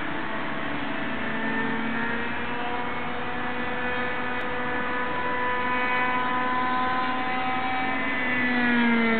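Small engines of radio-controlled model aircraft buzzing in flight, several at once, their pitch sliding up and down with throttle and passes. The sound grows louder near the end and its pitch drops as one plane passes close.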